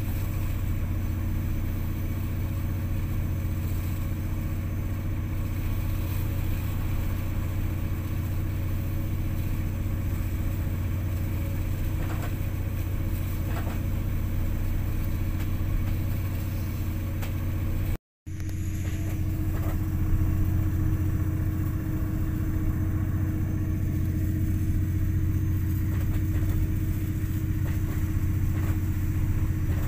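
Fishing boat's engine running steadily under way: a constant low drone heard in the wheelhouse. It breaks off for an instant about two-thirds of the way through.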